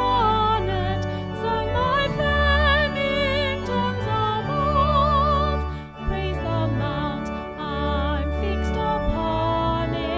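A hymn sung by a voice with strong vibrato over sustained instrumental accompaniment.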